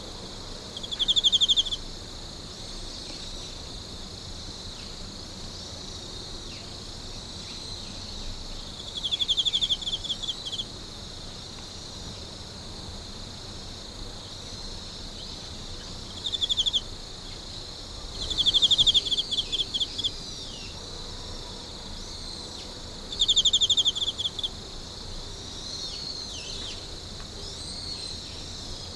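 Night insect chorus: a steady high-pitched hum of many insects, with a louder, rapid pulsing trill breaking out about once every several seconds, five times in all, and a few faint chirps in between.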